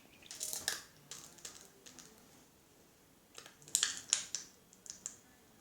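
Plastic glue bottle being squeezed and handled, its thin walls giving short crackling clicks in two clusters, about half a second in and again near four seconds in.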